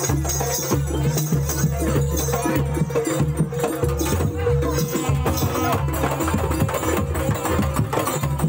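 Traditional jaranan accompaniment music: a Javanese gamelan-style ensemble of drums and struck percussion playing a fast, dense rhythm over steady low tones.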